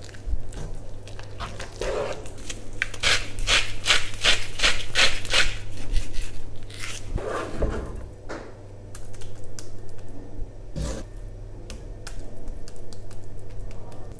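Wooden spoon stirring and scraping thick risotto in a granite-effect non-stick pan: a run of quick strokes, about three a second, then a few slower scoops and knocks as the rice is lifted out.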